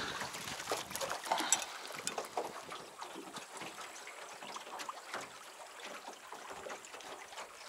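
Small river waves lapping and splashing against the side of an anchored boat's hull, a light irregular trickling and slapping.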